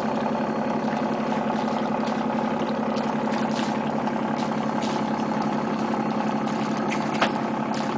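A boat's engine idling steadily. A single sharp click sounds about seven seconds in.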